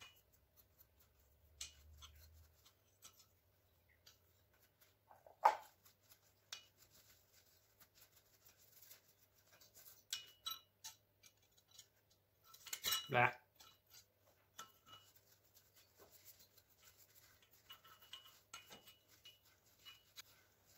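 Scattered light metallic clinks and knocks of blacksmith's tongs and a forged steel railway-spike bottle opener against an anvil, with a single louder knock about five seconds in and a short clatter around thirteen seconds in.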